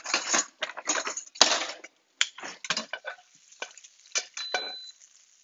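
Metal utensils clattering in a kitchen drawer as tongs are rummaged out, then a few lighter clicks of the metal tongs against a frying pan.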